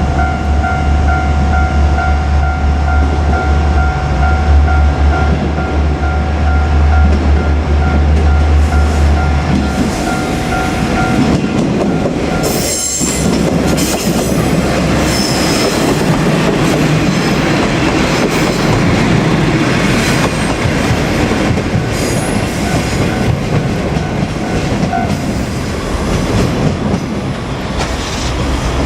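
JR Kyushu diesel railcar passing a level crossing. For about the first ten seconds there is a heavy low engine rumble under the steady two-tone ringing of the crossing alarm. Both then stop, and the train's wheels clatter over the rails with a sharp clack about 13 seconds in and high squealing as the cars roll by.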